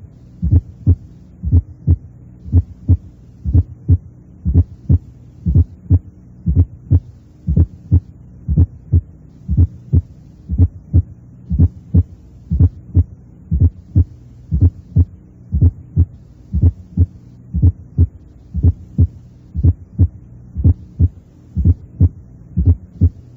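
Heart sounds heard through a stethoscope: a steady, regular heartbeat in which a low-pitched left atrial sound (fourth heart sound, S4) just before the first heart sound grows and fades with breathing, louder in expiration. A faint steady hum runs underneath.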